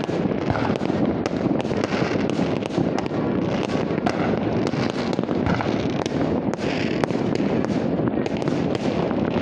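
Many fireworks and firecrackers going off from many places at once: a continuous rumble of distant bangs with frequent sharp cracks.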